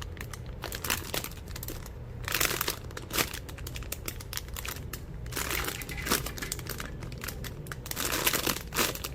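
Plastic packaging crinkling as it is handled, in irregular crackly bursts, louder about two, five and a half and eight seconds in.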